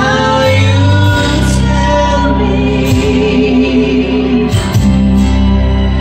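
A man and a woman singing a worship duet through handheld microphones over instrumental backing, with long held notes that slide between pitches.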